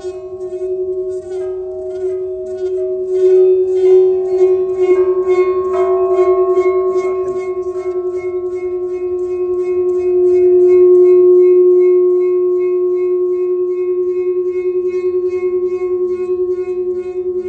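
A loud, steady ringing tone with several higher overtones, carrying a regular pulsing flutter that slows a little partway through.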